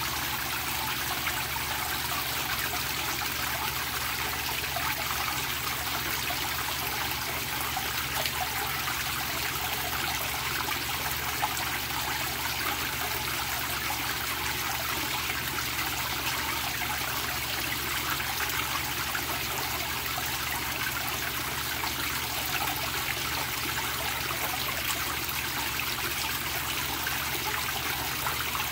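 Water jetting from a pipe outlet into a koi pond, splashing steadily onto the surface.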